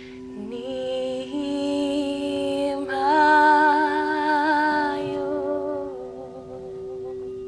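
A crystal singing bowl holding one steady tone while a voice sings a wordless, wavering melody over it, stepping up to a higher, louder note about three seconds in and fading out around six seconds.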